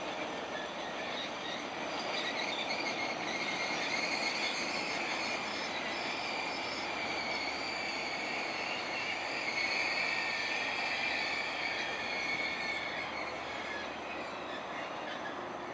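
Train of DL class diesel locomotives rolling past on steel rails: steady rolling rail noise with a high ringing from the wheels, swelling a little around the middle and easing near the end.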